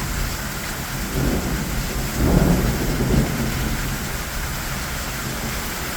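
Heavy rain pouring steadily in a severe thunderstorm. A rumble of thunder swells about two seconds in and lasts around a second.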